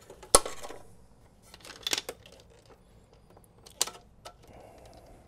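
Hands handling wiring and cables inside an open metal computer chassis: a sharp click about a third of a second in, a short cluster of clicks near two seconds and another click near four seconds, with light rustling between.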